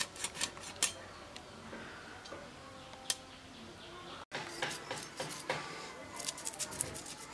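Rohu fish being scaled against the curved blade of a boti: a run of short, sharp scraping clicks as the scales are rasped off, thickest in the last three seconds.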